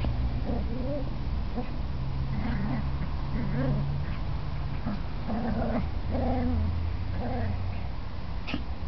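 Two Cavalier King Charles Spaniel puppies play-fighting, giving short growls and whiny yips over and over, over a low rumble.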